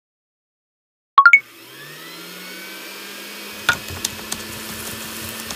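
Intro sound effects of an electric cooktop switching on: three quick beeps, each higher than the last, about a second in, then a low hum that slides up in pitch and holds. Under the hum comes a steady frying sizzle with a few sharp pops from the middle on.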